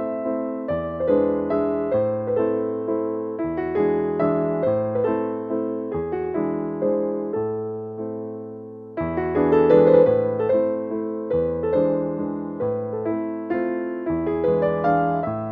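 Background music: gentle piano with a steady bass line, with a short pause about nine seconds in before the phrase restarts.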